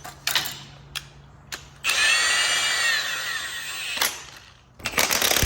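A handheld power tool runs in two bursts after a few sharp clicks. The first burst, about two seconds in, has a whine that rises and then falls in pitch as it winds down, and a second burst starts near the end.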